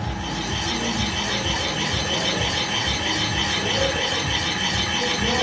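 Boring tool cutting the steel of a saw blade's arbor hole on a running machine, a steady scraping cut over the machine's hum, starting right at the beginning.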